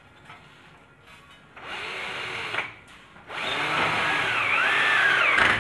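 Bosch cordless drill driving a screw into a window frame. It runs in two bursts: a short one about a second and a half in, then a longer one from a little after three seconds.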